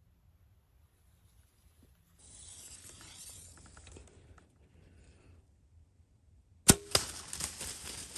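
A compound bow shot about two-thirds of the way in: one sharp, loud crack of the string and arrow release with a brief ring. It is followed by a couple of seconds of crashing and rustling in dry leaves as the hit buck bolts.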